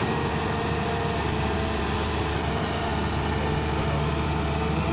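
Volvo EW130 wheeled excavator's diesel engine running steadily under load, with its hydraulics working as the bucket digs into and curls up a load of soil.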